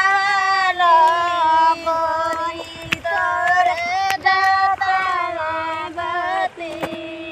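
Women singing a kajari, a Bhojpuri folk song of the rainy season, in long drawn-out notes.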